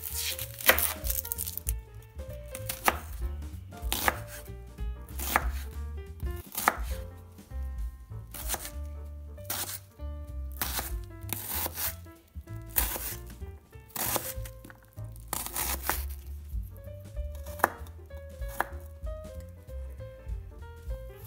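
Kitchen knife chopping an onion, and then garlic cloves, on a bamboo cutting board: sharp knocks of the blade on the wood, unevenly spaced at about one a second. Quiet background music plays underneath.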